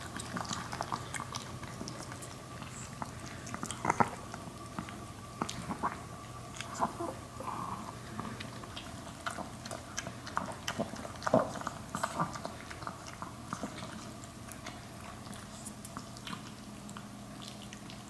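Maltese dog lapping milk from a stainless steel bowl: a quick run of small wet clicks and slurps, with a few louder clicks about four seconds in and again around eleven to twelve seconds, thinning out near the end.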